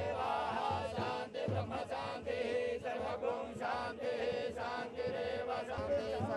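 Voices chanting temple prayers, a sung line over a steady held tone.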